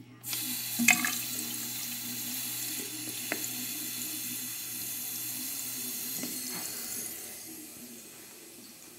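Bathroom sink faucet turned on, with a thin stream of water running and splashing into the basin. There is a sharp knock about a second in, and the running fades away about seven seconds in.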